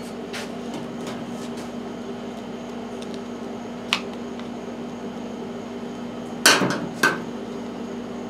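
Hand tools and small parts clicking and knocking on a workbench during a carburetor teardown: a few light clicks, then a louder clattering knock about six and a half seconds in and another just after, over a steady background hum.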